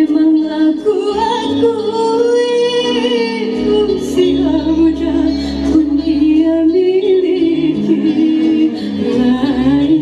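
A woman singing a dangdut song over instrumental backing, with long held notes that waver in a vibrato, the longest about a second in.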